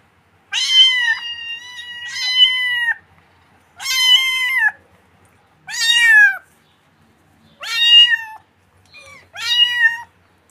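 Kitten meowing repeatedly in high-pitched calls, about one every two seconds: a long drawn-out call at the start, then about four shorter ones.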